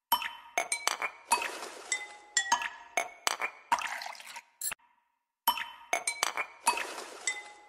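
Background music: a short phrase of sharp, ringing, clinking notes that repeats, with a brief silent gap about five seconds in.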